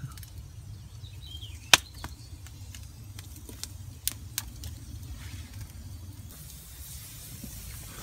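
Steady low rumble of wind on the microphone, with a few sharp snaps from a wood campfire popping, the loudest a little under two seconds in.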